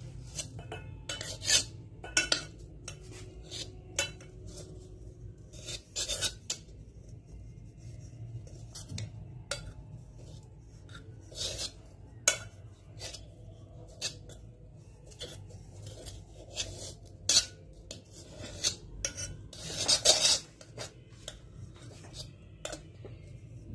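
A metal spoon scraping and clinking irregularly against the inside of an aluminium bowl as butter is spread to grease it, the busiest scraping about twenty seconds in. A faint low hum runs underneath.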